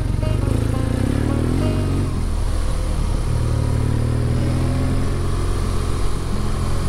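Adventure motorcycle engine running steadily under way on a dirt track, heard from on the bike, its pitch shifting a little with the throttle.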